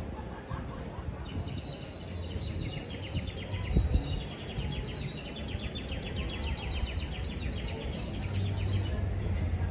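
A small bird sings a long, rapid trilling song, a fast run of high notes repeated many times a second. Under it runs a low outdoor rumble that swells briefly about four seconds in.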